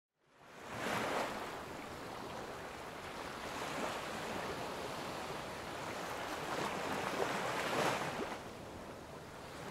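Water washing and lapping, with wind on the microphone. It fades in at the start and swells twice, about a second in and again around seven to eight seconds.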